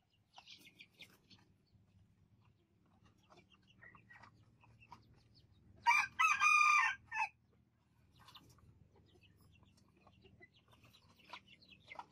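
A bantam rooster crowing once, about halfway through: a single loud crow lasting about a second and a half, with a brief break near its end. Fainter clucks and short calls come and go around it.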